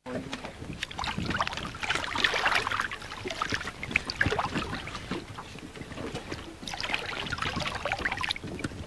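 Irregular splashing and sloshing of river water as a dorado is held by the tail over the side of a boat and worked back and forth to revive it before release. The splashing swells and eases several times.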